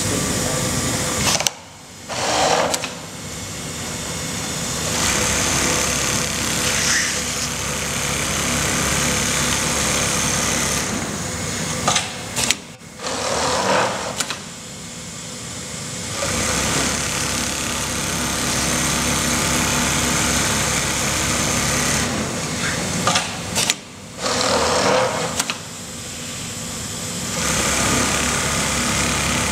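CNC template sewing machine running automatically, its needle stitching collar band to collar fall in a PVC template. The steady sewing noise stops briefly three times, each stop with a short burst of sound, then runs on.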